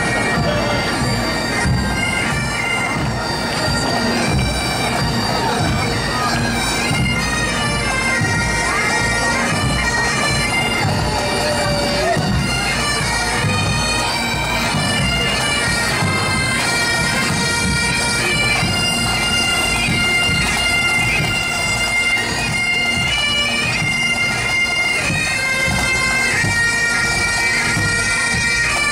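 Pipe band of Great Highland bagpipes playing a march tune over their steady drone, the melody stepping between held notes.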